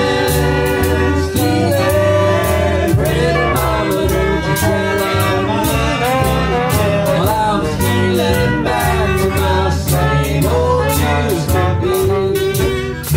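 Jug band playing an instrumental break: clarinet and brass horns carry wavering melody lines over a walking upright bass and strummed acoustic guitar, with a steady beat.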